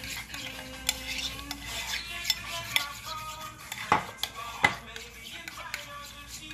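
A metal spoon stirring a thick sauce in a ceramic bowl. It clinks against the sides of the bowl again and again, with two louder knocks a little past halfway.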